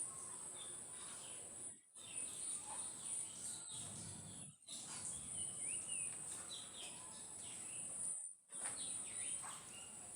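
Outdoor ambience: a steady high insect drone with scattered bird chirps and short whistled calls over it. The sound cuts out briefly three times.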